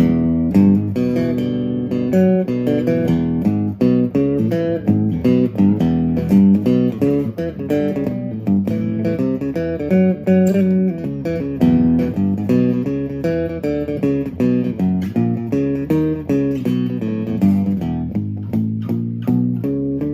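Acoustic guitar played through a Behringer UO300 octave pedal with the octave-down voice and the direct signal blended: a continuous run of single plucked notes carrying a deep, bass-like tone beneath them.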